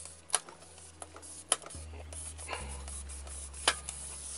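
A rice cooker's metal inner pot being pressed down and turned against the heating plate so it sits flat: scraping and rubbing, with three sharp clinks.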